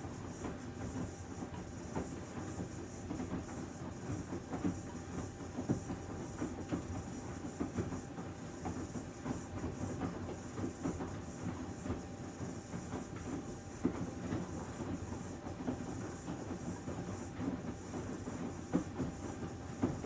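2017 Panasonic VX6 StainMaster+ front-loading washing machine in the main wash of its Mud programme: the drum turning with the load, giving irregular knocks and clicks over a steady hiss.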